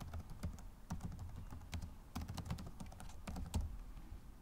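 Typing on a computer keyboard: a quick, irregular run of key clicks that stops shortly before the end.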